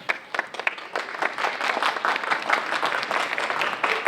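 Audience applauding: a few scattered claps at first, filling in to steady applause by about a second in.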